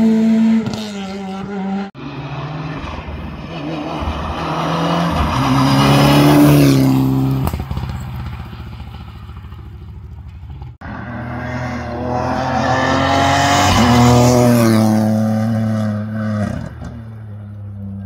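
Rally car engines at high revs, one car after another. The engine note is cut short about two seconds in. Two more passes follow, each building to a peak as the car nears and fading as it goes by, the second starting near eleven seconds in.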